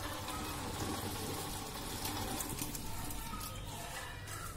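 Water pouring from a steel bowl through a perforated steel strainer into a sink, draining the soaking water off sprouted moong beans; a steady splashing pour.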